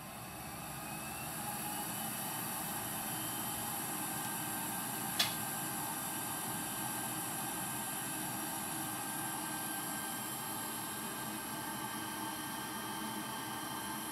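A small electric motor whirring steadily after building up over the first couple of seconds, with one sharp click about five seconds in.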